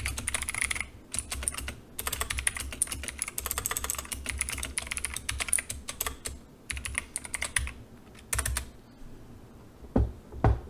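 Typing on a computer keyboard: several fast runs of key clicks with short pauses between them. Two dull thumps near the end.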